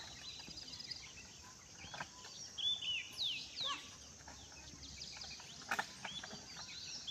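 Birds calling: short, high, falling chirps, the loudest cluster about three seconds in, over a steady outdoor background with a couple of faint knocks.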